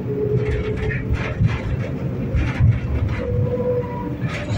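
A 71-911E "City Star" low-floor tram running along the line, heard from on board: a steady rumble of wheels on rail with a held whine and scattered short clacks.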